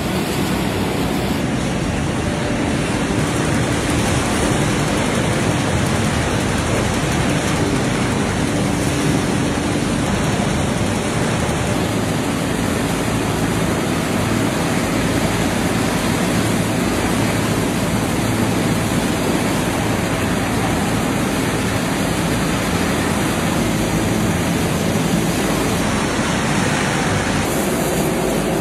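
Steady, dense rushing rattle of match-splint processing machinery, unchanging throughout, with a faint low hum underneath.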